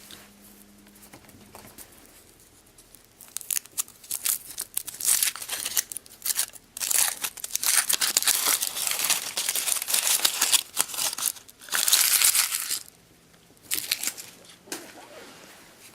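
Wrapping crinkled and torn open by hand, as when peeling the foil off a chocolate egg or opening a toy's plastic bag. A dense crackling runs for several seconds, stops briefly, then comes back shortly before the end.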